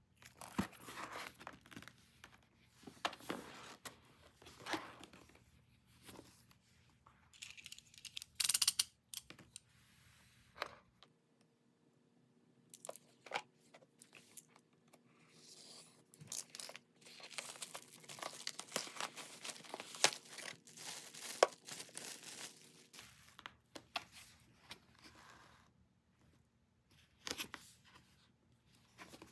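Packaging being torn open and crinkled by hand: irregular rips and rustles of wrapping, the sharpest rip about eight seconds in.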